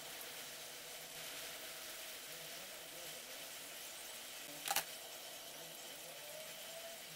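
Quiet room tone with a faint steady hum, broken by one short, sharp click a little past the middle.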